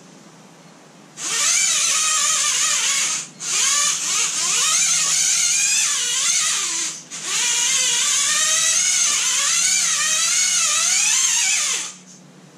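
Axial Capra 1.9 RC rock crawler's electric motor and gear drivetrain whining as it drives, the pitch rising and falling with the throttle. It starts about a second in, cuts out briefly twice and stops near the end.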